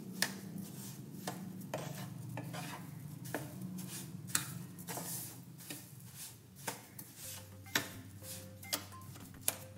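A utensil stirring and scraping a thick mixture of semolina, sugar and water in a cooking pan, with irregular clinks and knocks against the pan.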